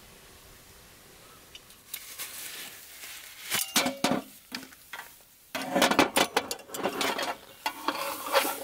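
Metal clinks and rattles of a SOTO ST-301 single gas burner being unfolded and set up on an aluminium camp roll table, its wire legs and pot supports knocking against the metal tabletop. The handling starts about two seconds in and gets busier toward the end.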